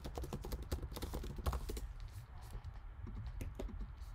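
Typing on a computer keyboard: a quick run of key clicks for about two seconds, then a few scattered clicks.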